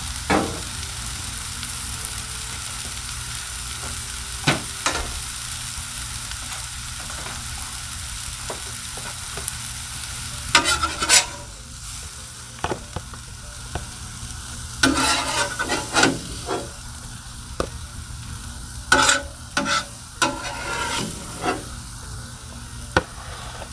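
Onions and mushrooms sizzling steadily on a flat-top griddle. From about ten seconds in, a metal spatula scrapes across the griddle top and knocks against a plastic container as the onions are scooped off, in several short bursts, while the sizzle grows quieter.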